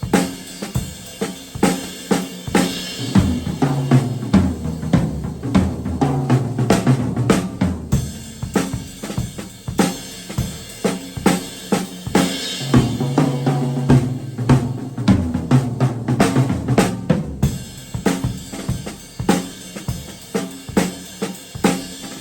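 A vintage 1960s Ludwig double bass drum kit played solo, with no backing track: a steady groove of kick drums, snare, hi-hat and cymbals. Twice, about three seconds in and again about twelve seconds in, low drums ring out in a run of strokes.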